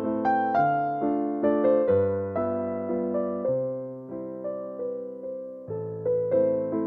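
Background piano music: struck notes and chords that ring and fade, the bass changing about once a second.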